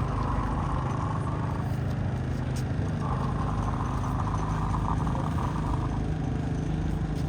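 A motor running steadily with a low hum, like an idling engine. A higher steady whine joins it briefly at the start and again for about three seconds from about three seconds in.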